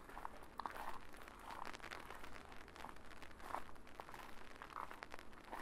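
Footsteps of a person walking at an even pace, close to the microphone, over a steady low background hum.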